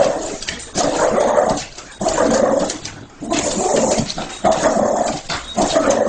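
Small dog vocalizing excitedly in a run of drawn-out whining, yelping calls: about six of them, each close to a second long with short gaps between.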